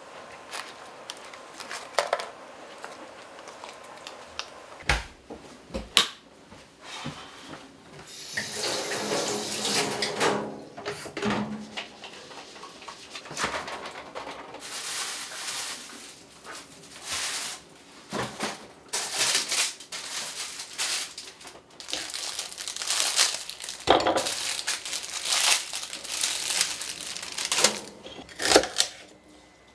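Kitchen sink sounds: water running from a tap in several bursts, with dishes and utensils knocking now and then.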